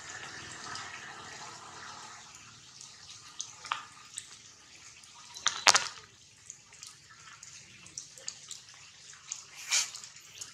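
Rain falling on forest foliage: a steady hiss, heavier for the first couple of seconds, with scattered drops ticking on the leaves and two louder sharp taps, about halfway through and near the end.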